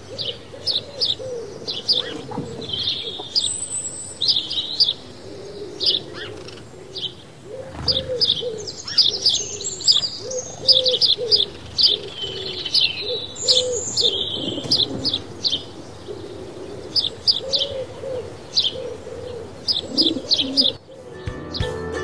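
Small birds chirping busily in quick short notes, with a dove cooing in a low, repeated call beneath them. Background music comes in near the end.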